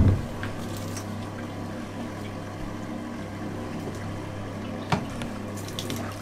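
Water running from a handheld shower head into a bathtub in a small tiled bathroom, an even hiss over a steady low hum, with a sharp thump right at the start and another about five seconds in.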